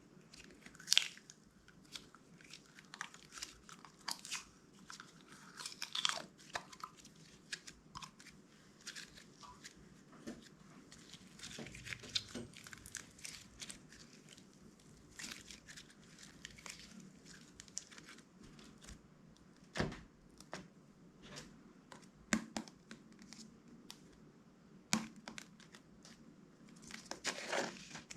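Clear slime being worked and mixed by hand, making a steady run of irregular small crackles and clicks with a few louder snaps.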